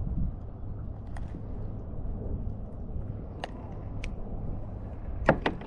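Handling noise in a kayak: a few sharp clicks and taps as a tautog and tackle are handled, the loudest two close together near the end, over a low steady rumble.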